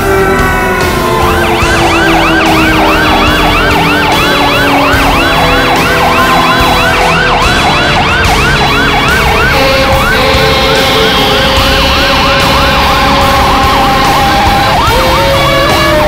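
Fire engine sirens sounding together: a fast electronic yelp sweeping up and down about three times a second, over a slower wail that falls in pitch during the first few seconds. Near the end another wail starts to wind up.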